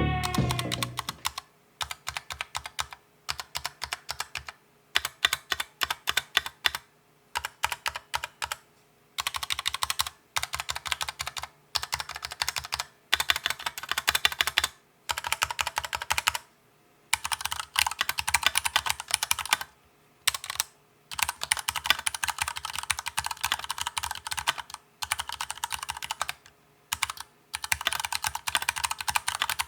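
Typing on a full-aluminium mechanical keyboard fitted with stock Cherry MX Brown switches: runs of quick keystrokes broken by short pauses.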